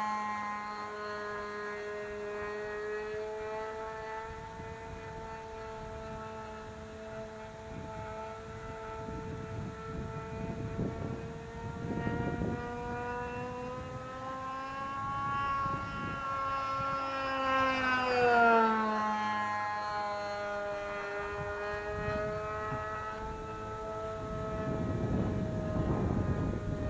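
Small engine of a radio-controlled model airplane droning in flight, a steady buzzing note whose pitch drops as the plane flies past, once at the start and again about two-thirds of the way through.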